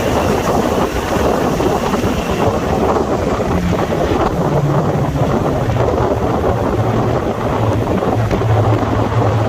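Class 55 Deltic's twin Napier Deltic two-stroke diesel engines roaring under full power, heard from onboard the train with heavy wind rush. A low steady drone comes through more strongly about halfway through.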